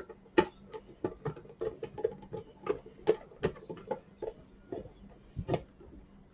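Hand screwdriver turning screws into an INGCO blower's housing during reassembly: a run of irregular clicks, about two to three a second.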